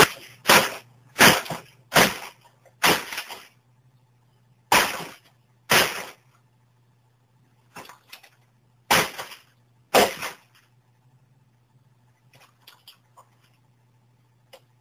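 A hammer smashing a piece of junk: about nine hard blows in uneven groups over the first ten seconds, then a few faint knocks near the end.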